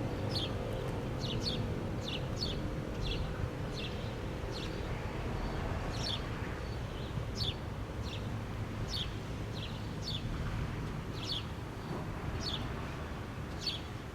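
Outdoor warning siren winding down, its faint tone falling slowly in pitch and dying away over the first few seconds. A bird gives short, high, downward chirps about once a second throughout, over a steady low rumble of wind.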